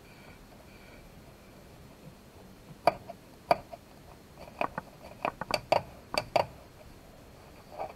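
Plastic snap clips of a Dell G3 laptop's bottom cover clicking loose as the cover is pried from the case with a plastic opening tool: about eight sharp clicks starting about three seconds in, several in quick succession.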